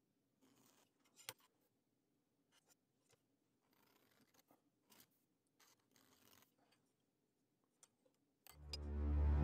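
Faint scratching strokes of a pointed hand tool drawn along a blue-covered steel knife blade, with one small sharp click about a second in. Music fades in near the end.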